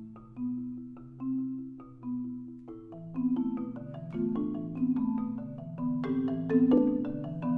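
Solo Yamaha concert marimba played with mallets: held, rolled low notes under single struck notes higher up. The playing starts sparse and soft, then grows denser and louder from about three seconds in.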